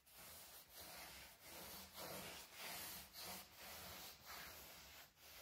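Faint swish of a paintbrush spreading water-based polycrylic clear coat over rough barnwood boards, in repeated back-and-forth strokes about one and a half a second.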